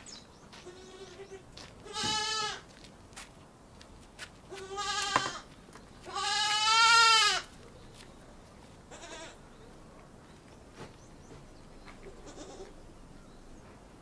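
Young goat bleating five times: three loud bleats, the third the longest and loudest with a quavering pitch, then two faint ones.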